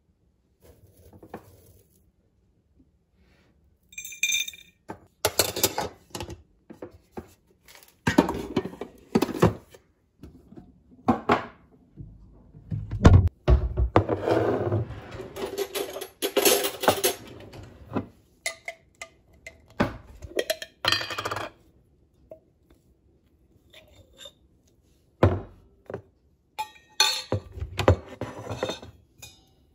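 Irregular clinks, knocks and scrapes of metal and glass kitchenware being handled, with short pauses: a stainless steel tea tumbler and its infuser, a tin of loose-leaf green tea and the lid of a glass honey jar.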